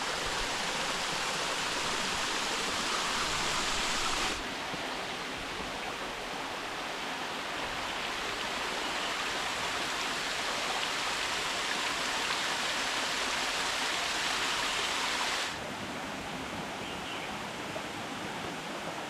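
Waterfall rushing steadily as a continuous even hiss of falling water. Its level changes suddenly about four seconds in and again near the end.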